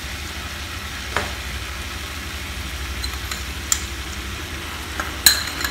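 Boneless chicken and shallots frying in a nonstick pan, a steady sizzle over a low hum. A metal spoon gives a few light clicks as salt is added, the loudest near the end.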